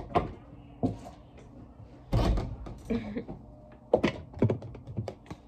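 Tarot cards being handled on a glass-topped table: a string of sharp taps and knocks, with a duller thump about two seconds in.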